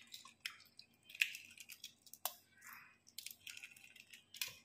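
Hard-boiled eggshell cracking and peeling off under the fingers: faint, scattered crackles and small clicks.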